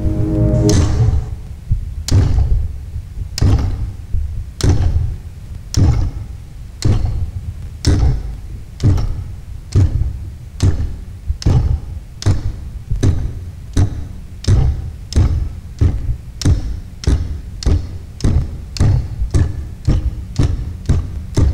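Amplified vintage Singer sewing machines beating out a rhythm of heavy thuds, each with a sharp click on top. The beats come just over a second apart at first and quicken to about two a second near the end.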